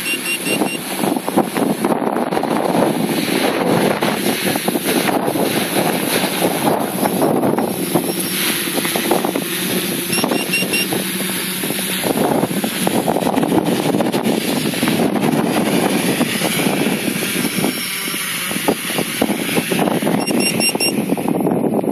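Quadcopter's brushless motors and propellers whirring steadily as it flies itself back to land on failsafe return-to-launch, mixed with wind buffeting the microphone. A short run of faint high beeps comes three times, about ten seconds apart.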